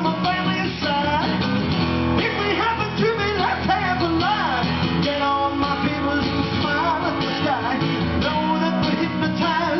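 Live solo acoustic rock: a jumbo acoustic guitar strummed steadily while a man sings along into a microphone.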